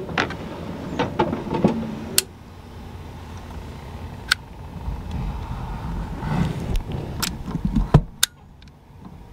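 Scattered clicks, knocks and rustling as hands handle wires and a plastic multi-pin wiring connector on a switch under a car's dashboard.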